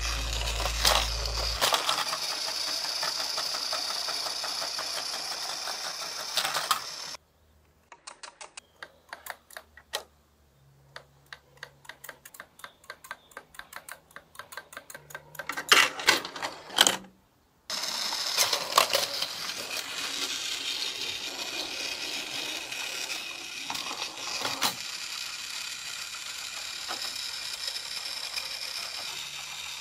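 Battery-powered Plarail Thomas toy train's small motor and gearbox whirring, with clicks from the plastic wheels and track. About seven seconds in the whirring stops and a hand-turned lever mechanism on the Harold delivery toy ticks in a rapid, even series, with a few loud plastic clacks as the crate drops. The train's whirring then starts again and runs on.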